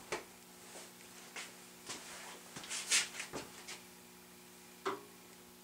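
Light handling noises: a few soft clicks and short scrapes as a steel drill chuck and its taper arbor are picked up and moved about, over a faint steady electrical hum.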